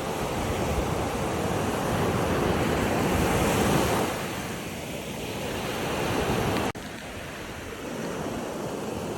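Sea waves washing in, with wind buffeting the microphone. The wash swells to a peak a little before the middle, eases off, then cuts out abruptly about two-thirds of the way through and carries on quieter.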